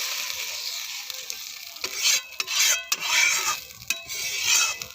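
Spice paste sizzling in a hot pan while a spatula stirs and scrapes it, with louder scraping strokes about once a second from about two seconds in.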